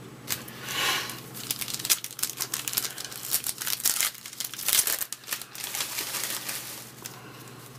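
Foil wrapper of a Topps baseball card pack crinkling and crackling as it is handled and torn open by hand. The irregular crackles die down about seven seconds in.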